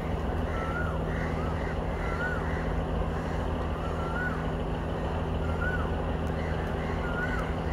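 A steady low engine drone, with a bird repeating a short whistled call that rises and falls, every couple of seconds.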